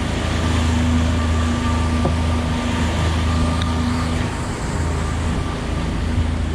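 Boat engine running steadily at trolling speed: a constant low hum with a steady whine above it, over a hiss of wind and water.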